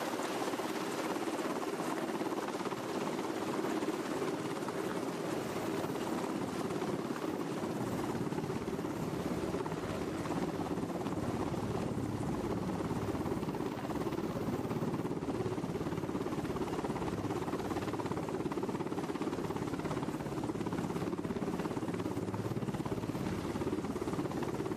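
Sikorsky H-60 helicopter hovering low, with a steady, loud rotor and turbine noise and the rush of its rotor wash.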